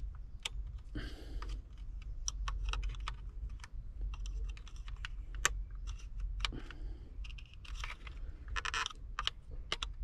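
Irregular small plastic clicks and taps as hands twist and pry at a stuck bulb socket in the back of a Toyota 4Runner's HVAC control panel, with a couple of brief scraping sounds, one about a second in and one near the end.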